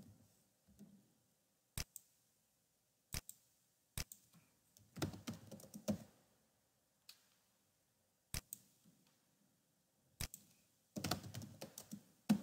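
Faint computer keyboard typing: single clicks spaced a second or two apart, with a quick flurry of keystrokes about five seconds in and another near the end.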